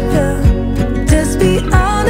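Background pop music: a melody over chords with a steady kick-drum beat, about one beat every 0.6 seconds.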